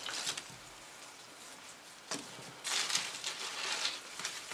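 Flower stems and leaves rustling as they are handled and drawn out of a vase, with a light knock about two seconds in followed by a longer rustle.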